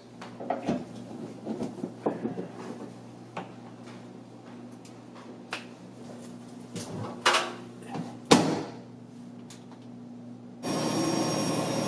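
Light clicks and knocks as the 240-volt plug and cord are handled and plugged in, then, near the end, a steady electronic buzzing beep of about two seconds from the Bosch front-loading washer's control panel as a button is pressed, a sign the washer has power.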